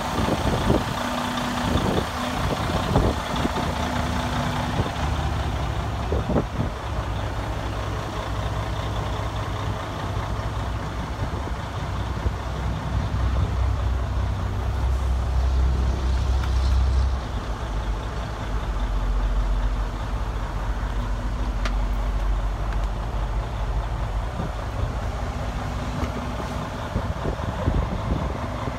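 2016 Freightliner Cascadia's diesel engine idling steadily, with a few knocks and clicks in the first several seconds.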